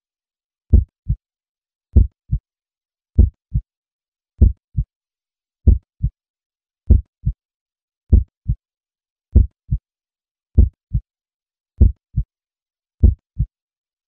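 Slow heartbeat sound: paired low thumps, a loud beat followed by a softer one, repeating evenly about every 1.2 seconds.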